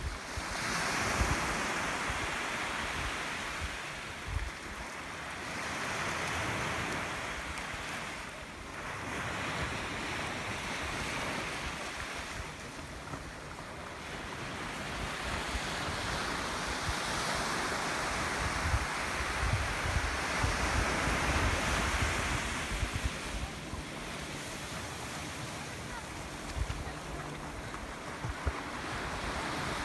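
Small ocean waves breaking and washing up a sand beach, the rush swelling and fading every several seconds with each wave, with wind buffeting the microphone.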